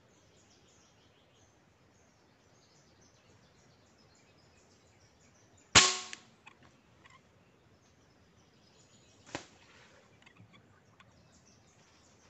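A single air rifle shot about six seconds in, sharp with a short decay, followed about three and a half seconds later by a fainter sharp knock. Faint bird chirps sit under it.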